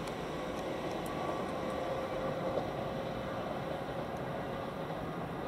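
Thameslink Class 700 electric multiple unit approaching, a steady rumble with a faint steady whine.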